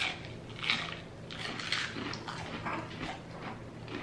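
Close-up chewing and crunching of crispy deep-fried battered seafood, a string of irregular crackly bites and mouth sounds.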